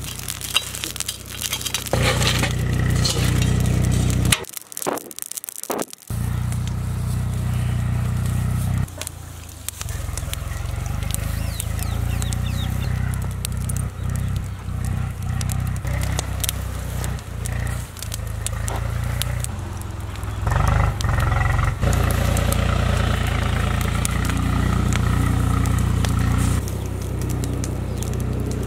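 Burning charcoal crackling and snapping under a grill, over a steady low rumble.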